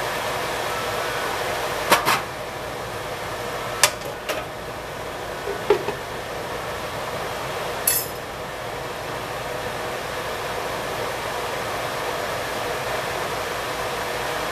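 A few sharp knocks and clatters of dishes and cookware, ending about eight seconds in with a bright clink as the glass lid goes onto the square nonstick pan. A steady hiss runs underneath throughout.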